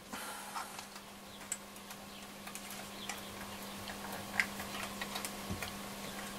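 Faint, scattered small clicks and taps as the pins of a replacement module are worked by hand into the circuit board of a Roberts R600 transistor radio, over a faint steady hum.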